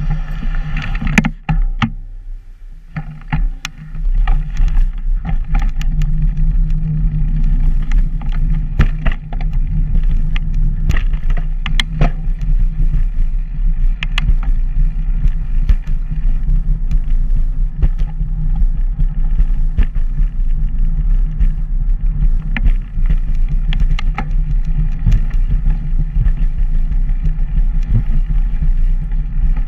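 Wind rumbling over the microphone of a camera carried along a paved path, with frequent small clicks and rattles from the ride over the pavement. The rumble eases off about two seconds in and picks up again about four seconds in.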